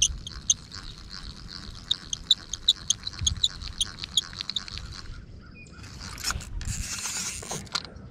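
Dry plastic Barbie kid's spincast reel squeaking as its handle is cranked, several quick squeaks a second, a reel that needs oil. The squeaking stops about five seconds in.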